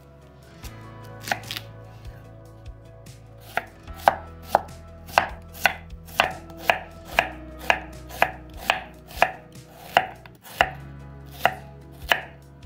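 Chef's knife slicing an onion on a wooden cutting board. A few scattered cuts come first, then a steady run of blade knocks on the board, about two a second.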